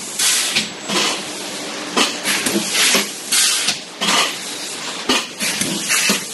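Disposable plastic cup thermoforming machine running, with repeated short noisy bursts about one or two a second and the clatter of the plastic cups it turns out.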